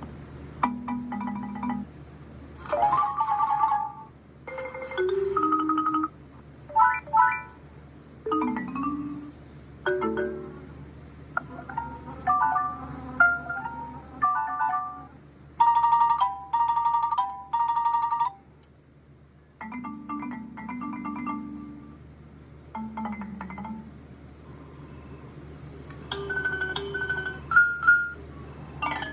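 Cartoon rocket chime sound effects: a string of short electronic chime and beep jingles, each a half second to two seconds long, with brief gaps between. Some jingles are high bell-like notes, and others slide down through low tones.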